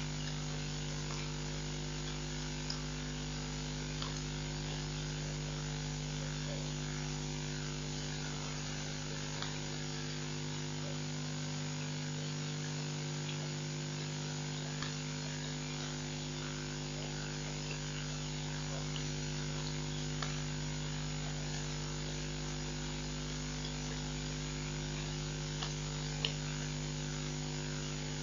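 Steady electrical mains hum with a constant hiss, broken only by a few faint scattered clicks.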